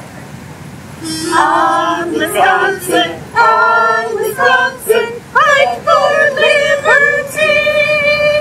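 A small group of women singing together in held notes, starting about a second in and ending on a long held note.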